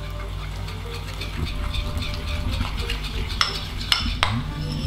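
A metal fork stirring thick buttercream in a ceramic bowl, with soft scraping and a few sharp clinks of the fork against the bowl in the second half.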